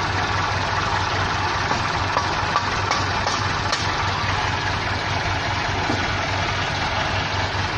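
Small tractor's engine running steadily at idle, an even low hum.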